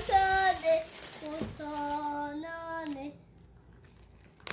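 A young child's voice singing a few long, drawn-out notes, each held steady, then falling away after about three seconds; a short sharp click near the end.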